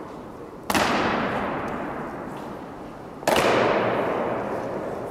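Honour guard's boots stamping on a stone floor in unison in a slow ceremonial march step, twice, about two and a half seconds apart. Each stamp rings on in a long echo that fades slowly.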